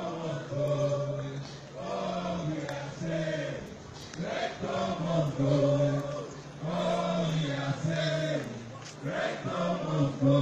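Crowd of protesters singing a protest chant together, in short sung phrases with brief breaks between them.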